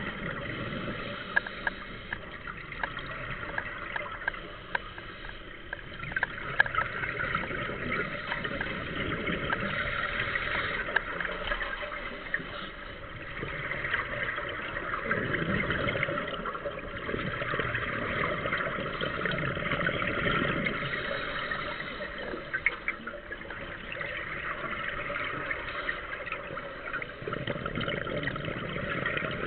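Scuba regulator breathing underwater: exhaled bubbles gurgling in swells every four to five seconds, with scattered sharp clicks.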